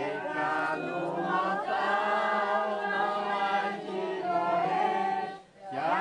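A group of voices singing a religious hymn together, without instruments, with a short break between phrases about five and a half seconds in.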